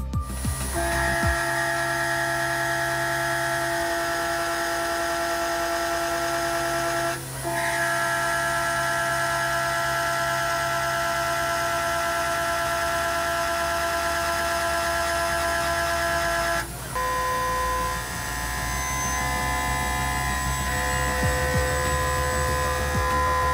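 CoroMill 390 indexable end mill with size 07 inserts cutting steel in a CNC machining centre: a steady, high multi-tone whine. It drops out briefly about seven seconds in and again about seventeen seconds in, coming back at a different pitch after the second break.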